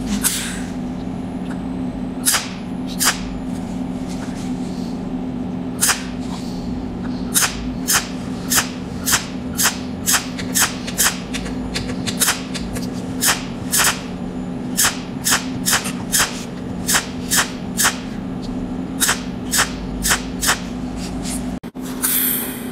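Cold welding machine firing short arc pulses, each a sharp crackling snap as a spot of copper filler wire is fused, repeating roughly once or twice a second over a steady low hum. A short hiss comes near the end.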